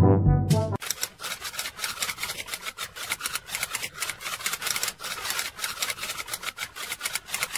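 Fingers scratching and rubbing a cat's belly fur: a steady, fast scratchy rustle that starts under a second in, as a tune cuts off.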